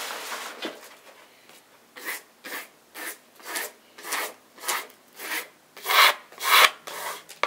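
A wallpaper spatula scraping and rubbing over wallpaper as it is pressed flat against the wall, in repeated strokes about two a second that grow louder near the end.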